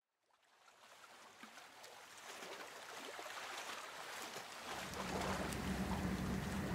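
Waterside ambience fading in: a soft hiss of water and breeze. About three-quarters of the way through, a boat engine joins it with a steady low drone.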